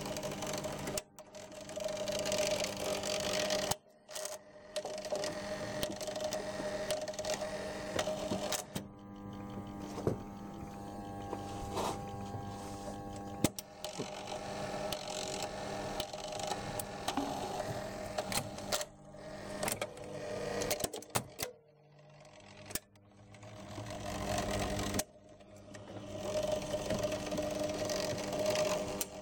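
NSM GP Minibox jukebox record-changer mechanism running: a motor whirring with clicks and clatter from its gears and racks. It pauses and starts again several times as the mechanism cycles.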